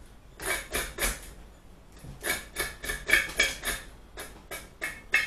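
A kitchen knife scraping and cutting the skin off a large taro corm in short, quick strokes, about three a second, with a brief pause about a second and a half in.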